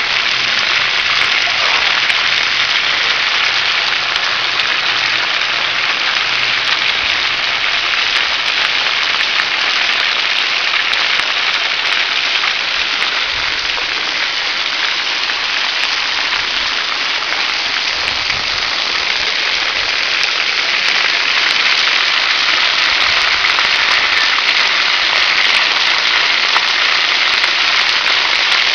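Splash pad water jets spraying, with the water spattering steadily onto the wet pad.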